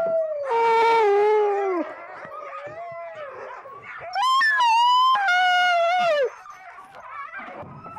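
Sled dogs howling: a long howl sliding down in pitch about half a second in, then a louder, wavering howl about four seconds in that also falls away, with softer whining between.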